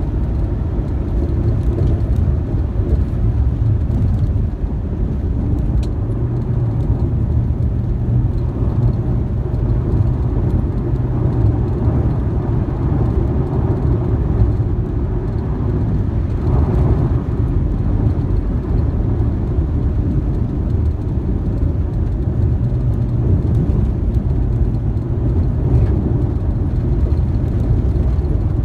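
Car driving steadily along an unpaved dirt road: a continuous low rumble of engine and tyres on the dirt.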